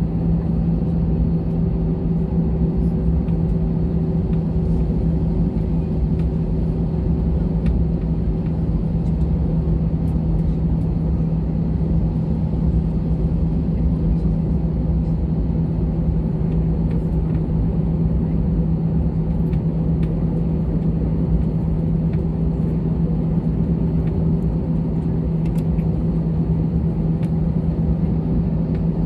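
Jet airliner cabin noise while taxiing: the engines at low taxi power give a steady hum with a constant low drone over a rumble, heard from inside the cabin.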